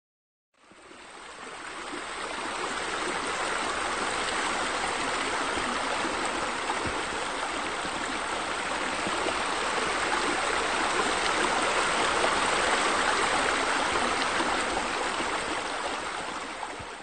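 Steady splashing of running water, like fountain jets falling into a pool, fading in over the first couple of seconds and fading out at the end.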